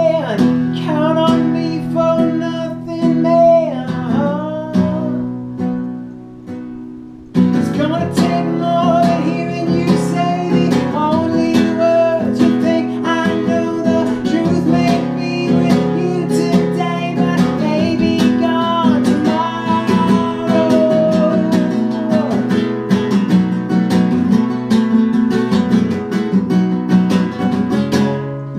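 Acoustic guitar strummed, dying away about five seconds in and coming back in full about seven seconds in.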